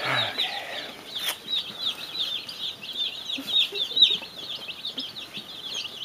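A brood of Cornish Cross broiler chicks peeping constantly: many short, high, downward-sliding peeps overlapping in a dense chorus. One sharp click about a second in.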